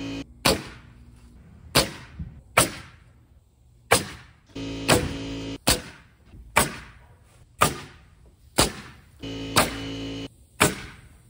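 Pneumatic framing nailer firing nails into 2x4 wall framing, a sharp shot about once a second, about a dozen in all. A steady hum comes and goes twice between the shots.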